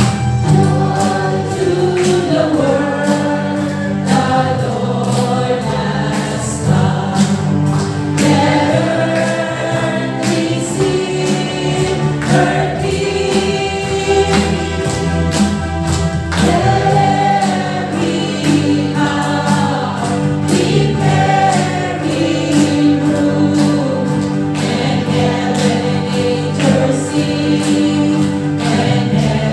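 A choir singing a Christian carol over instrumental accompaniment with a steady beat.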